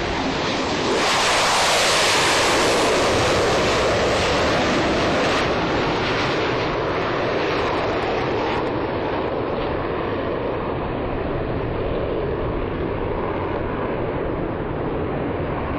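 Jet engine noise from an F-35 Lightning II at high power as it lifts off and climbs away: a loud, steady rushing roar that swells about a second in, then slowly eases.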